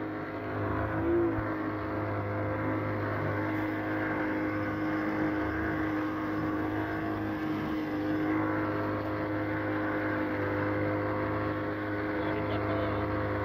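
Outboard motor running steadily as the boat travels under way, with a brief small rise in pitch about a second in, then holding an even note.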